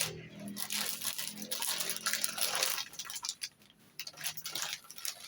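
Motherboard box packaging being handled: crinkling and rustling for about the first three seconds, then scattered light taps and clicks.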